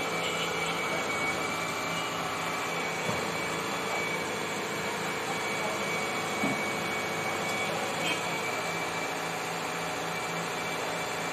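Hitachi crawler excavator's diesel engine running steadily under hydraulic load while the machine holds itself up on its boom and bucket, with a thin steady high whine over it. A couple of light knocks come about two-thirds of the way through.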